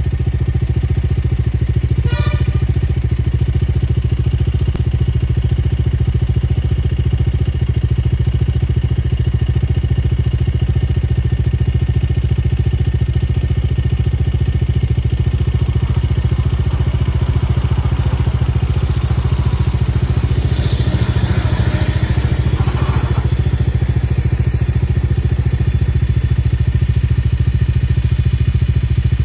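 A vehicle engine idling steadily nearby: an even low rumble. In the middle stretch a broader rushing noise swells up over it and fades again.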